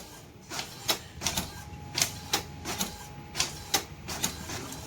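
Epson M200 ink-tank printer running, its mechanism giving a run of sharp, unevenly spaced clicks, about two or three a second, over a low hum.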